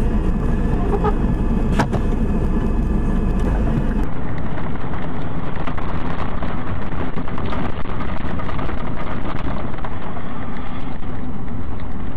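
Car driving noise from a dash-cam recording: steady engine and road rumble. About four seconds in it switches abruptly to a louder, hissier road noise.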